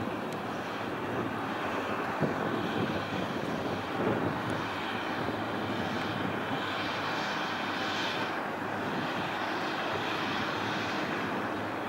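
Steady jet aircraft engine noise on an airport apron: a continuous rumble and hiss, with a higher whine that swells and fades several times in the second half.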